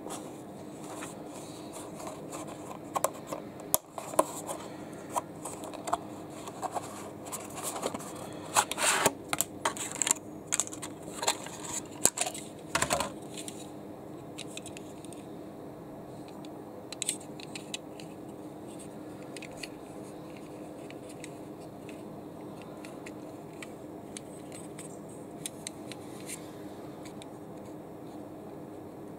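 Plastic blister packaging and card of a diecast toy car being pulled open by hand: a busy run of crackles, clicks and tearing, heaviest in the first half and ending about 13 seconds in. After that come a few small clicks as the toy car is handled, over a steady low hum.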